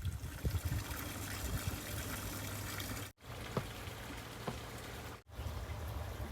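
Water trickling, over a low rumble, with two brief dropouts in the sound about three and five seconds in.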